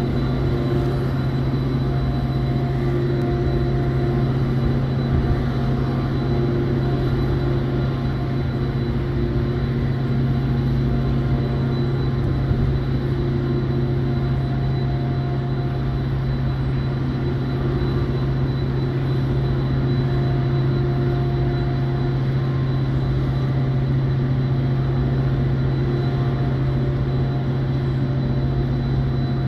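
Diesel locomotive of a WeGo Star commuter train running at a standstill: a steady low engine drone, with higher tones in it that swell and fade.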